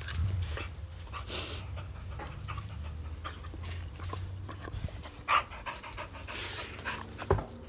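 A 14-year-old dog panting steadily with its mouth open, close up. Two short knocks come through, about five and seven seconds in.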